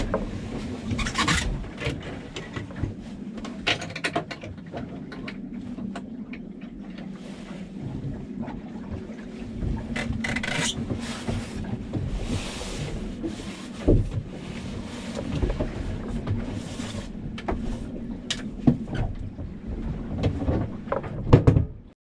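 Knocks, clicks and rustling as someone in foul-weather gear moves about the cabin of a small sailboat and climbs out through the companionway hatch, over a steady low hum of boat noise. The sound cuts off suddenly at the end.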